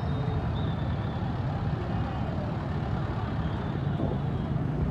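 Road traffic with a bus engine running close by: a steady low rumble.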